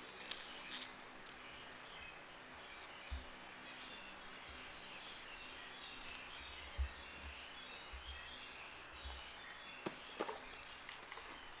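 Faint chirping of small birds over steady background noise, with a few soft low bumps and some light clicks about ten seconds in.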